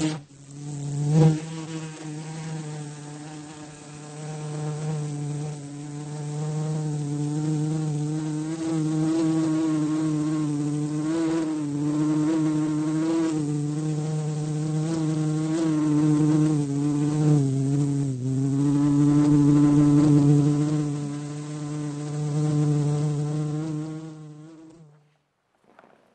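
A housefly buzzing continuously, its pitch wavering slightly as the buzz grows and fades in loudness, then stopping abruptly shortly before the end. A short knock about a second in.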